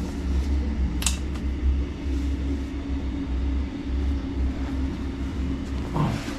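Steady low hum of a running machine, with a sharp click about a second in.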